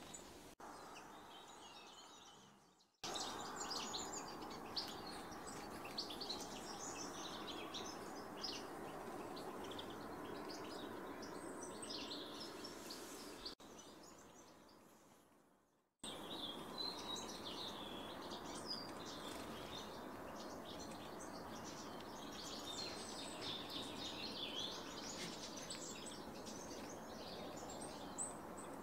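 Small songbirds chirping and calling, many short high chirps over a steady background hum. Twice the sound fades away to near silence and then cuts back in abruptly.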